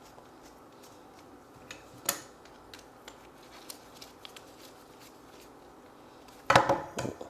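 Faint, scattered metallic clicks and taps from a hand tool working a sight pusher tool as it is opened up, with one sharper click about two seconds in. A short burst of voice comes near the end.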